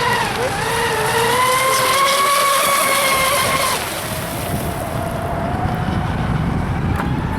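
Pro Boat Zelos twin RC catamaran's brushless electric motors whining at speed, with a high hiss; the whine climbs slowly, then drops to a lower pitch just under four seconds in.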